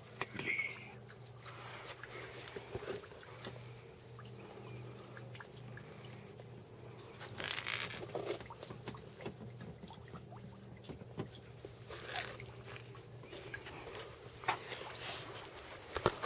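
Car engine idling steadily through a new aftermarket exhaust with dual tips, heard as a faint, even low hum. Scattered clicks and two short, louder rustles come a little before halfway and about three-quarters of the way in.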